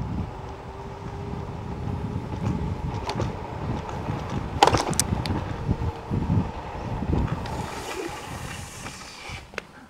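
Wind buffeting the microphone with a steady low rumble. A Sealup Q19 electric scooter passes near the end, its tyres hissing on the concrete.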